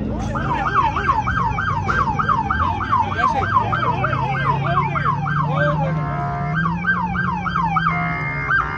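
Police car siren on a fast yelp, quick repeating wails about three a second; after about six seconds the wails slow and come between steady tones. A low engine hum runs underneath.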